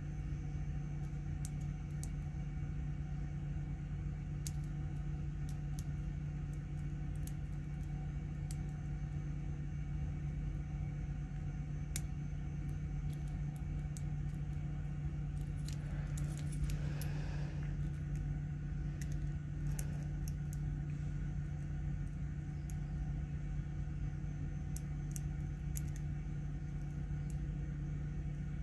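Small scattered metallic clicks and scrapes of a flat-tip lock pick and tension wrench working the pins inside a padlock, with a brief rustle of handling about two-thirds of the way through, over a steady low hum.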